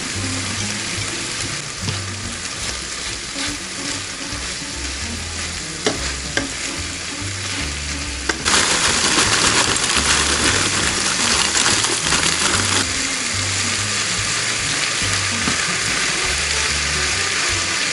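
Pork and sliced vegetables sizzling as they are stir-fried in a frying pan with a wooden spatula. About halfway through, a louder steady hiss joins in: steam venting from a pressure rice cooker.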